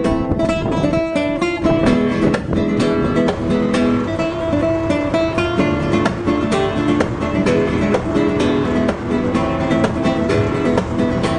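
Background music: acoustic guitar, plucked and strummed in a flamenco style.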